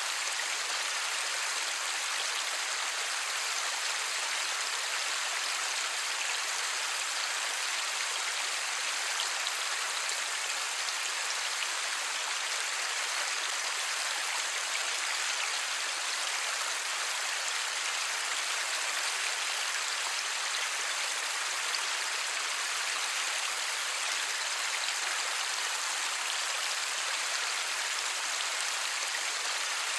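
Steady light rain: an even, unbroken hiss with no thunder.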